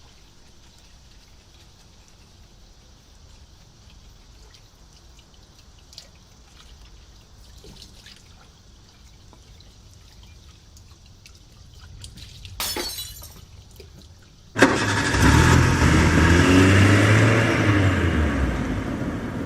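A car engine comes in suddenly and loudly after a long quiet stretch, its low pitch rising and falling, then easing off toward the end. A short burst of noise comes a couple of seconds before it.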